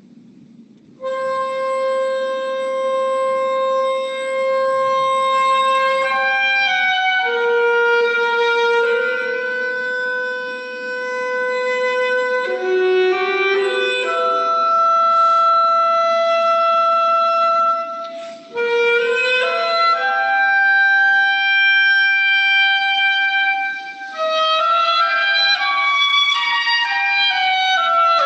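Solo clarinet playing a slow melody of long held notes. It comes in about a second in, with short breaks between phrases.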